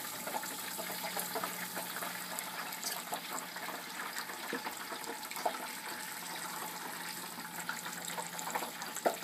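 Deep-fried turkey and the 350°F frying oil beneath it sizzling steadily, with fine crackles, as the bird hangs just lifted above the pot.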